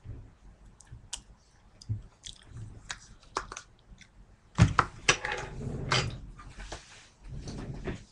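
A person eating ice cream with a spoon: mouth and chewing sounds with small sharp clicks. About four and a half seconds in, a loud thump and rustling as she moves about right by the microphone.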